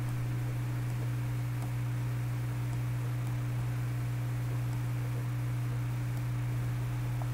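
Steady low electrical hum with an even hiss, the background noise of the recording's microphone, with no other sound over it.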